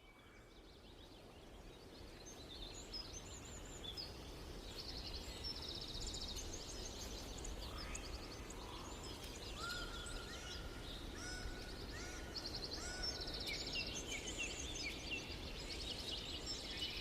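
Faint outdoor birdsong fading in: several birds give quick high chirps and trills, with a run of short, flat whistled notes about two-thirds of the way through.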